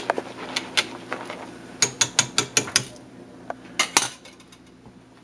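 Wire whisk clinking against the sides of a metal stock pot as liquid custard is whisked. The strikes come in a quick run of about six a second, from about two seconds in, and end with two loud knocks just before four seconds.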